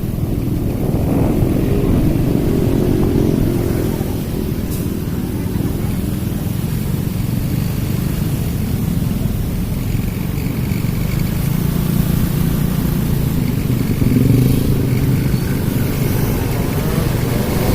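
Road traffic with motorcycle engines running, a steady rumble that swells and fades as vehicles pass.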